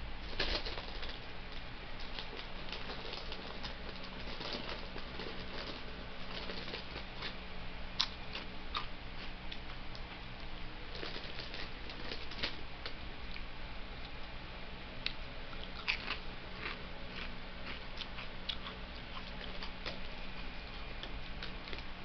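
Crunching and chewing Rap Snacks potato chips: a long run of small sharp crackles and crunches, busiest near the start and again in the second half, over a low steady hum.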